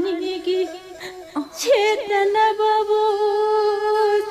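A Manipuri wari storyteller's solo voice singing a slow, chant-like passage without accompaniment: a wavering line, a short break about a second in, then one long held note.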